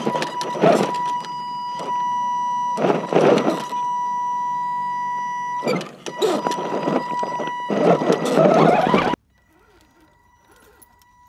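Brushed 540-size electric motor of an Axial SCX10 RC crawler whining at a steady high pitch while the truck is stalled against a rock, broken by short louder bursts. It cuts off suddenly about nine seconds in.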